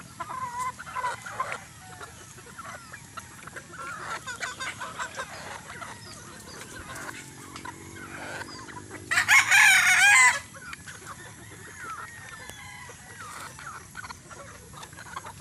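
A large flock of chickens, mostly roosters, clucking steadily as they feed at a trough. About nine seconds in, one rooster crows loudly for over a second.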